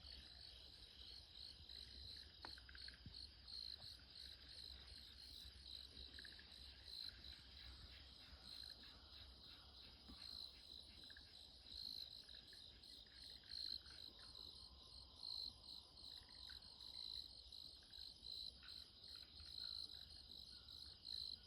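Faint, steady trilling of crickets from the woods, pulsing without a break. Softer, lower trills come in now and then; they sound like frogs calling in spring paddies.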